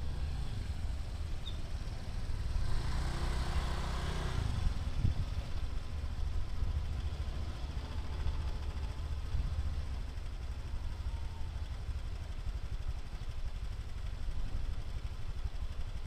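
A motorcycle engine pulling up and idling, with a low steady rumble; the engine is louder for a couple of seconds about three seconds in.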